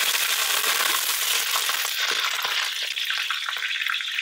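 Curry leaves and green chilies sizzling in hot oil in a stainless steel wok, a loud steady hiss that eases a little after about two seconds. Clicks and scrapes of a steel spatula on the wok come in as the leaves are scooped out.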